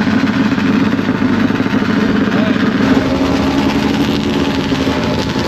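Snowmobile engine idling steadily, a constant low hum that eases slightly about halfway through.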